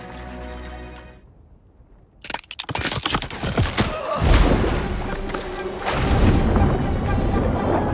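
Film sound effects of river ice giving way: a rapid series of sharp cracks, then a heavy boom with a deep rumble as a dog plunges through the ice into the water. Orchestral film music fades out about a second in, before the cracking starts.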